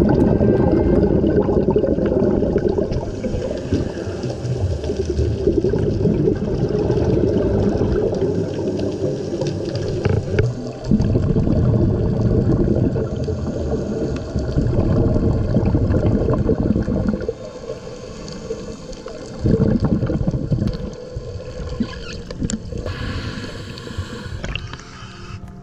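Underwater bubbling and gurgling of scuba divers' exhaled regulator bubbles during a slow ascent, in long bursts separated by short pauses. Near the end the sound turns lighter and splashier as the camera reaches the surface.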